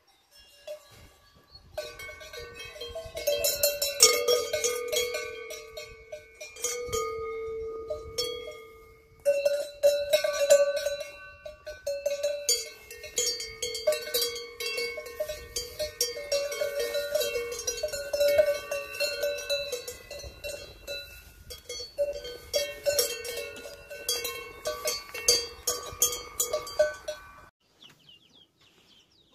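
Cowbells on grazing cows' necks clanking irregularly as the animals move their heads, each strike leaving a ringing metallic tone. There is a brief pause about nine seconds in, and the clanking stops a couple of seconds before the end.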